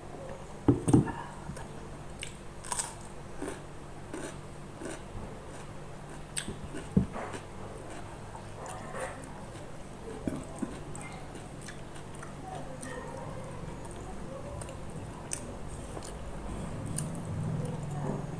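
A person eating close to the microphone: chewing and biting food, with scattered wet mouth clicks and a few sharper clicks, the loudest about a second in and about seven seconds in. A short low hum near the end.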